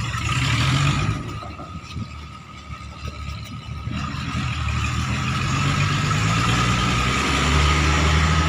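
A heavy machine's diesel engine running steadily. About a second in it fades for a few seconds, then builds back up to a steady run.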